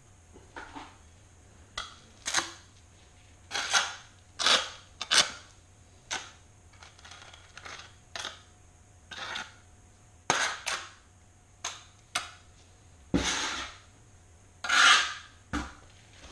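Steel tiling trowel scraping and spreading thinset mortar: a series of short, irregular scrapes with a couple of sharp knocks.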